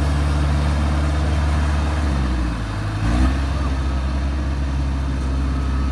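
Engine of a tracked rice-harvesting machine running steadily while it is pushed out of deep mud; its low note changes about two seconds in.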